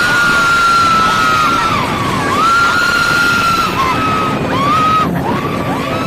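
Background music: a high melody line of long, sliding held notes over a steady backing.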